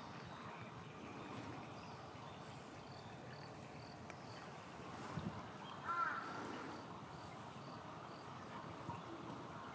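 Outdoor ambience: steady background noise with a faint high chirp repeating about twice a second, a low knock about five seconds in and a short pitched call about six seconds in.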